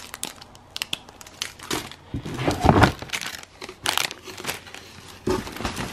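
Clear plastic bag around a squishy crinkling as it is handled, in irregular crackles, with a heavier knock about two and a half seconds in.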